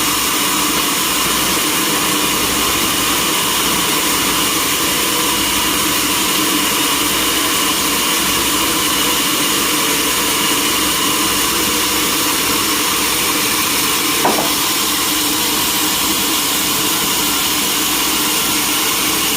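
Sawmill machinery running steadily, an engine-driven saw with a constant hum and a hiss over the top. A short click about fourteen seconds in.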